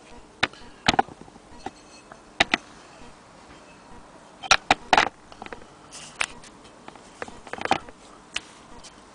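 Irregular clicks and knocks of a cast-iron sewing-machine hand-crank attachment being handled on its wooden base, with two sharp knocks about half a second apart in the middle and a cluster of clicks near the end.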